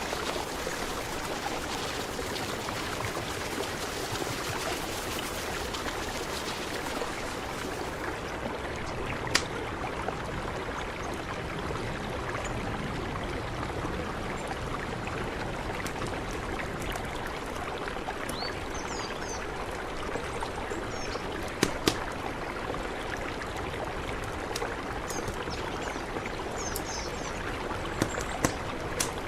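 Mountain river flowing, a steady rushing of water, with a few sharp clicks and faint high chirps in the second half.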